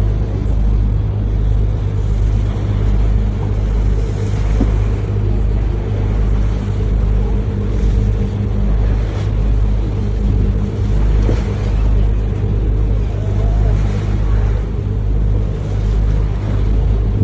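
Tour boat's engine running steadily under way, a deep even drone with a rushing noise of water and wind over it.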